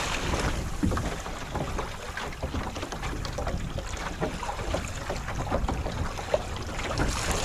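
Water splashing and rushing along the hull of a sailboat under way in strong wind, heard from a phone fixed to the gunwale, with wind rumbling on the microphone.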